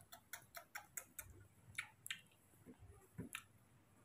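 Faint, quick clicks, about five a second for the first second or so, then a few scattered ones.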